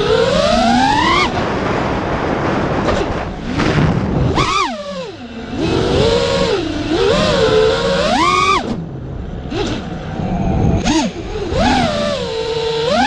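Radio-controlled car's motor whining up and down in pitch as the throttle is opened and released, over gritty rolling noise. It climbs steeply in the first second, cuts out, then comes back in several quick revs.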